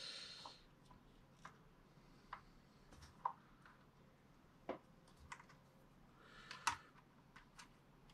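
Faint, scattered light clicks and taps of small parts being handled and fitted by hand, with one sharper click about two-thirds of the way through.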